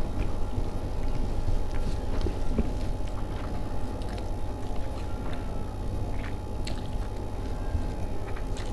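Someone chewing a mouthful of ghee-rich fried rice, with scattered small clicks and mouth sounds. A steady low hum runs underneath.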